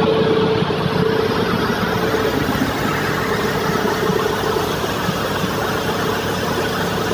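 Steady din of running machinery in a ship's engine room, with a constant hum over it.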